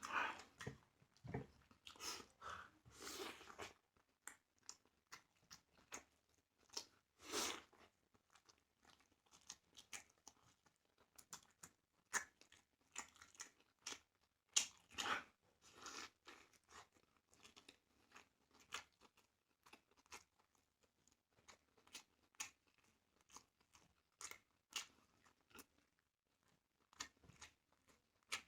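A person eating starch close to the microphone: faint, irregular chewing with wet mouth clicks and smacks, a few of them louder.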